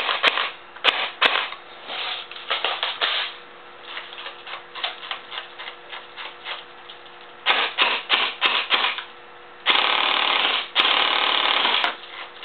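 Echo1 Stag Arms full-metal M4 airsoft electric gun with high-speed gears and a GMP M120 motor test-firing: a run of single semi-auto shots, a stretch of quieter rapid clicking, then two long, very fast full-auto bursts near the end.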